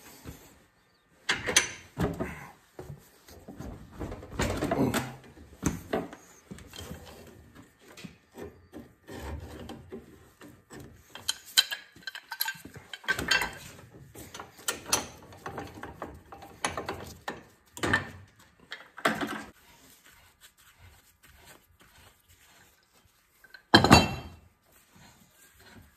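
Metal clanks, knocks and scrapes of a large pipe wrench being fitted and worked on the threaded end cap of a hydraulic cylinder clamped in a steel bench vise, coming in irregular bursts. A single loud knock near the end.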